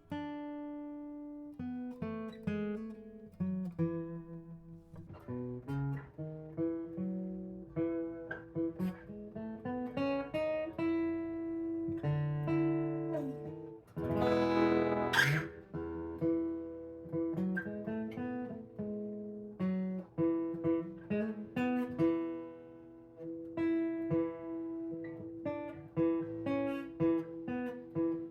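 Acoustic guitar played fingerstyle: a run of single plucked notes over a held, ringing note, with one loud strummed chord about fourteen seconds in.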